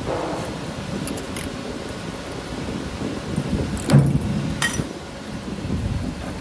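CNC camless spring forming machine running, its tool slides bending 2.6 mm wire, with a steady low mechanical rumble and a few sharp metallic clicks and clinks, the loudest a knock about four seconds in.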